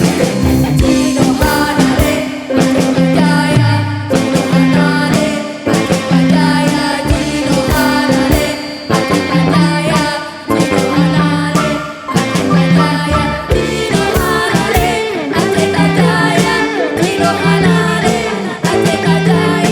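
Live ensemble music: drums beating a steady pulse under pitched melodic instruments and singing.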